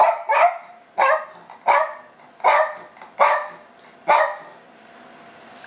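A silky terrier barks seven times in short, sharp barks over about four seconds, then stops. It is asking for food.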